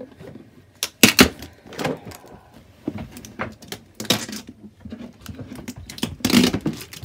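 Hands prying at the lid of a cardboard gift box: scattered knocks, scrapes and rustles of cardboard, loudest about a second in and again just after 6 s.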